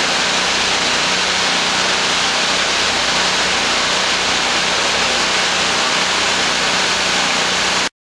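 Wulai Waterfall, a tall waterfall pouring down a rock face, heard as a loud, steady hiss of falling water. It cuts off abruptly at the very end.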